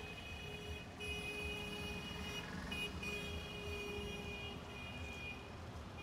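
Road traffic on a wet street: a low rumble of passing vehicles, with a steady high-pitched whine over it that breaks off briefly about a second in and again midway.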